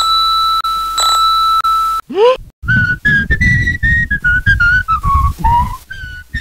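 High-pitched cartoon whistling. One steady note is held for about two seconds, then a quick upward swoop, then a rapid run of short high notes over low thumps.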